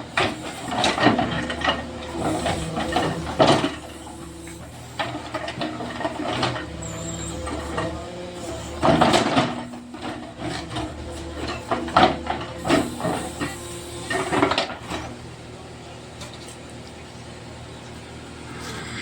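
Backhoe loader's diesel engine running steadily, with irregular loud knocks and clatter several times.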